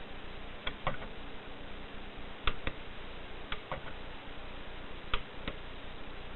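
Mercedes Selecta typewriter mechanism clicking: four pairs of sharp clicks at uneven intervals, like slow single keystrokes, over a steady hum and hiss.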